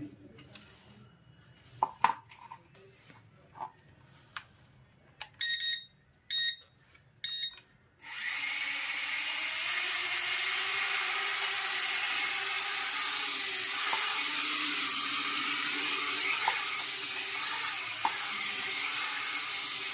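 Three short electronic beeps, then the small electric motors and rotors of a toy drone or RC helicopter start abruptly and run on as a steady high-pitched whir.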